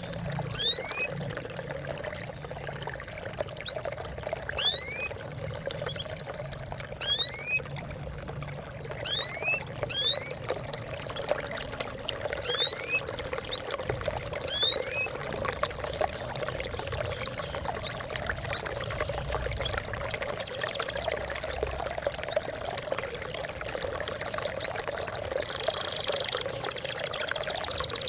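Water trickling and splashing steadily, with birds giving many short, rising chirps over it. A fast buzzing trill comes in about two-thirds of the way through and again for the last few seconds.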